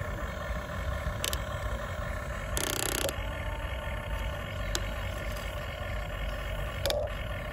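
Electric motors and gearboxes of a Huina RC excavator whining steadily as the boom and bucket move, with a few sharp clicks and a short rush of noise about three seconds in.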